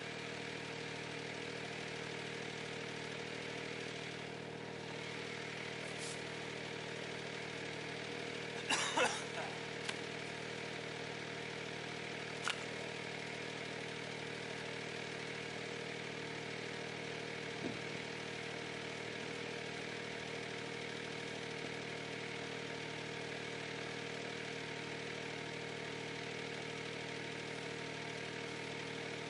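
Ventrac 4520Z compact tractor's engine idling steadily, with a few brief knocks and scuffs about a third of the way in.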